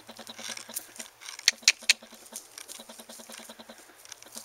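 Soft steps and rustling on dry grass and needles, with a quick run of three sharp clicks about a second and a half in.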